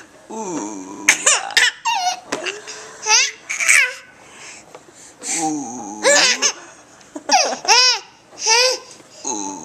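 A baby laughing in repeated short bursts of high-pitched, rising-and-falling squeals. Between them come lower-pitched vocal sounds, the adult's silly noise that sets the laughter off.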